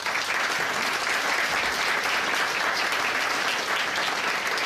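Audience applauding steadily: many people clapping at the close of a talk.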